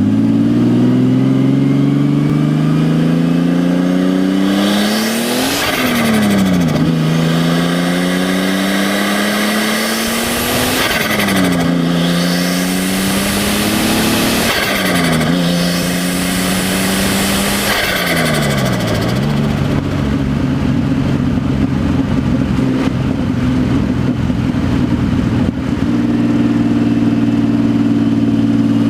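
Nissan RB25DET turbocharged straight-six, run with no exhaust and no blow-off valve, revved up four times. Each time the throttle closes, the revs fall away with a rapid turbo flutter: the compressor surging because there is no valve to release the boost. After the fourth rev it settles into a steady idle.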